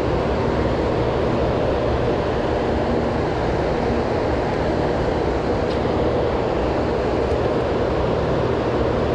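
Steady rush of turbulent river water flowing out below a dam's powerhouse, an even, unbroken noise with a faint steady hum in it.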